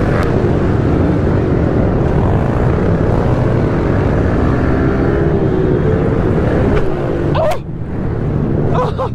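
Pit bike engine running under throttle close to the rider's helmet microphone, with other pit bikes racing nearby. The engine note rises and falls with the throttle and drops briefly about seven and a half seconds in as the rider backs off for a turn.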